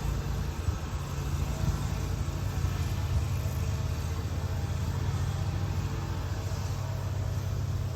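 School bus engine running steadily under way, a constant low drone with road noise.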